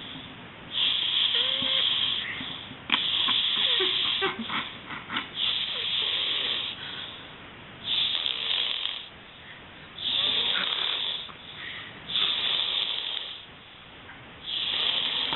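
Snoring: a rasping breath about every two to two and a half seconds, seven in a row.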